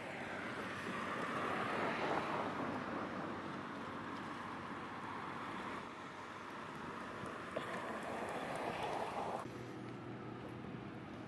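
A small passenger ferry's engine running steadily in the distance, a low drone under a hiss of outdoor noise. The higher hiss thins out about nine and a half seconds in.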